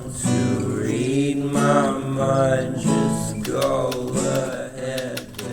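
Background music with acoustic guitar strumming, getting quieter near the end.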